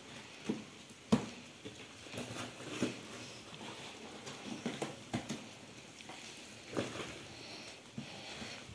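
Scattered light knocks and rustling, with one sharper knock about a second in.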